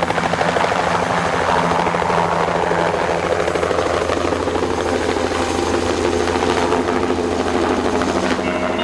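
Single-turbine Bell 206L LongRanger helicopter lifting off and climbing away, its turbine whining over a fast, steady rotor chop.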